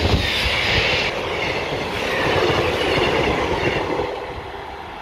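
A four-unit diesel multiple unit (a Class 158, two Class 153s and a Class 150 coupled together) passing close by, its wheels running on the rails and its underfloor diesel engines running. The noise eases off from about four seconds in as the last unit goes by.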